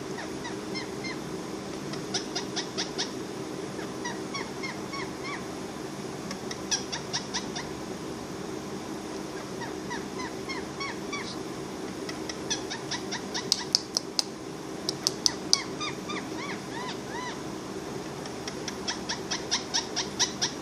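Parrot making quick runs of short clicking chirps, each with a small hooked pitch flick, in repeated bursts of several, loudest around the middle. A steady low hum lies underneath.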